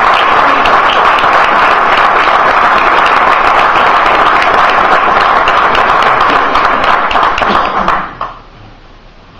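Audience applauding, loud and dense, dying away about eight seconds in.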